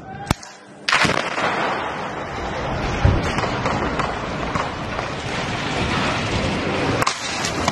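Explosive charges blowing up a multi-storey building: a sudden blast about a second in, followed by several seconds of sustained rumbling, with a sharp crack near the end.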